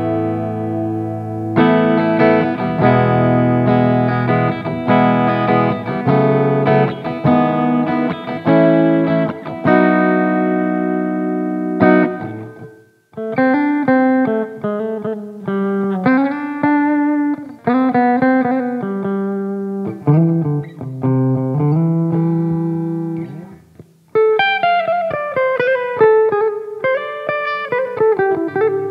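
SQOE SEST250 electric guitar played through an M-VAVE Cube Baby effects unit: sustained chords for about twelve seconds, a brief pause, then single-note lead phrases ending in descending runs.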